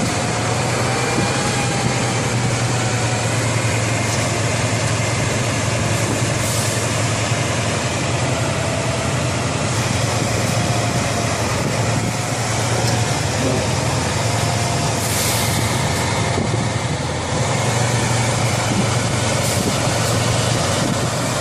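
Diesel engine of an eight-wheeled off-road expedition truck running steadily as the truck crawls over rough, broken ground. There is a low drone with a wavering whine above it, and a few short hisses.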